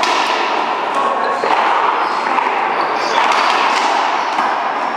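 One-wall racquetball rally: a few sharp hits of the ball off racquets and the front wall, about one and a half seconds apart, each echoing in the large hall over steady background noise.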